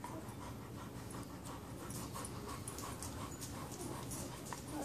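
Young puppies and dogs in a litter: soft, even, rhythmic breathing sounds about three a second, with faint high clicks.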